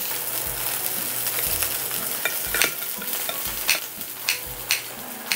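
Oil sizzling steadily in a frying pan, with several sharp snips of kitchen scissors cutting through crisp-crusted pork neck in the second half.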